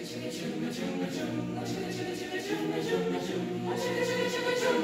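Mixed high-school choir singing a cappella, several voice parts holding sustained chords, with a higher part coming in near the end.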